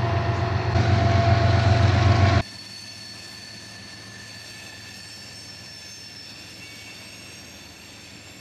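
Freight train passing: a loud rumble with a steady low drone that cuts off abruptly about two and a half seconds in. It gives way to a much quieter stretch of the train with a faint, high, steady wheel squeal.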